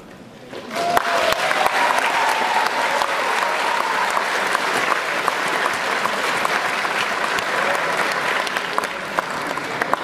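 Audience applause breaking out suddenly about a second in and carrying on steadily, with individual hand claps clearly audible.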